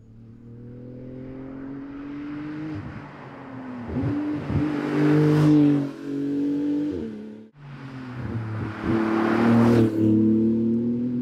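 Porsche 911 GT2 RS's 3.8-litre twin-turbo flat-six driving past twice, heard from the roadside: the engine note climbs and steps between gears and swells to a loud peak with tyre rush as the car goes by, about five seconds in and again near the end, with a sudden break between the two passes.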